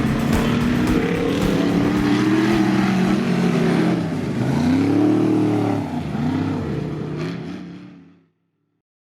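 Off-road race vehicle engine revving hard at speed, its pitch rising and falling repeatedly, then fading away near the end.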